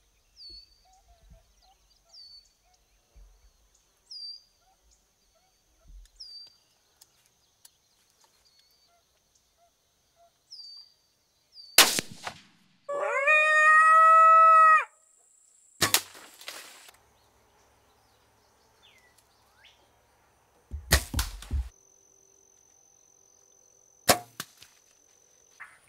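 A small bird chirping about once a second, then a sharp crack, a coyote howl held steady for about two seconds, and three more sharp cracks, the one about 21 seconds in deep and lingering like a rifle shot.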